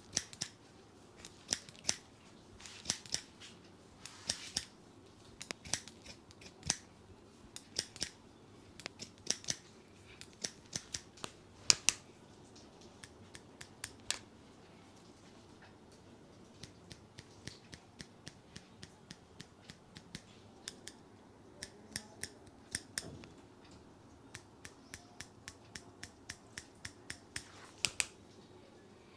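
Barber's scissors snipping through hair: a long run of sharp metallic clicks in irregular bursts, with a short lull about halfway through.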